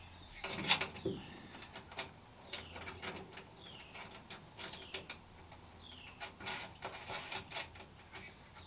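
Small metal screws and nuts clicking and ticking against a metal exhaust-outlet flange as they are fitted by hand. A bird chirps faintly in the background, a short falling note every couple of seconds.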